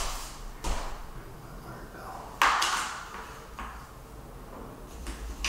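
Tape measure being handled while measuring: a light click about half a second in, then a louder sharp metallic clatter about two and a half seconds in that dies away within half a second.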